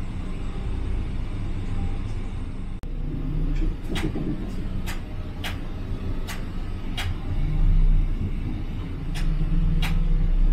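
Large coach's engine running with a low rumble, heard from inside the cabin as it slows to a stop. From about four seconds in, a run of sharp clicks about one every 0.7 seconds sounds over it, with a short gap before the last two.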